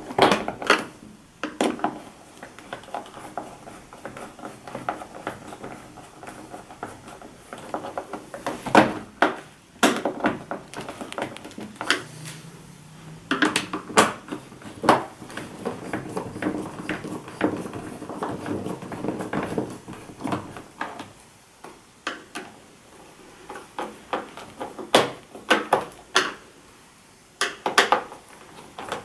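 Hand screwdriver turning screws into a Samsung LCD TV's plastic back cover. Sharp clicks and knocks of the tool and screws against the plastic come every few seconds, with scraping and rustling between them.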